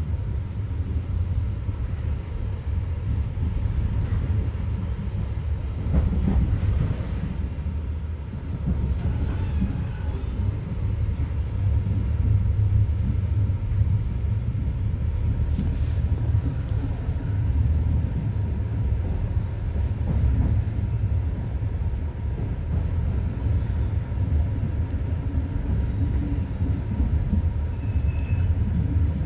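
Train rumbling steadily, with a thin steady tone above the rumble and a few short clicks.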